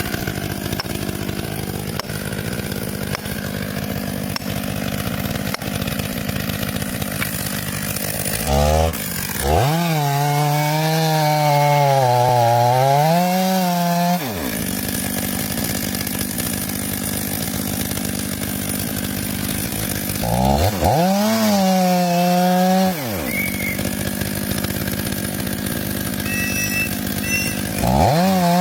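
Two-stroke chainsaw running, with three spells of full-throttle revving: a clear high engine note about a third of the way in lasting about five seconds, a shorter one past the two-thirds mark, and another starting near the end.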